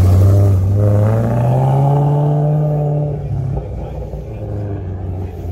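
Car engine accelerating: its pitch climbs steadily for about two seconds, then drops away about three seconds in, leaving a quieter rumble.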